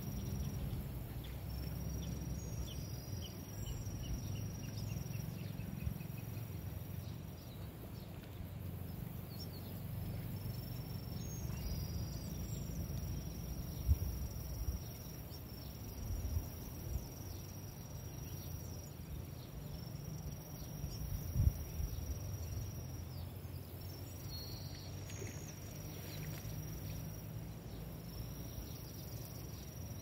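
Lakeside ambience: a steady high-pitched insect trill that breaks off a few times, over a low rumble of wind on the microphone. A bird gives a run of short notes falling in pitch a few seconds in, and there are a couple of dull bumps midway.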